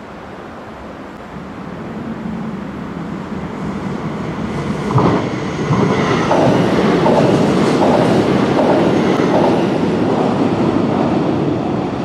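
A train approaching and passing over a level crossing. The rumble builds steadily, and from about halfway the wheels clack rhythmically over the rail joints, before easing off near the end.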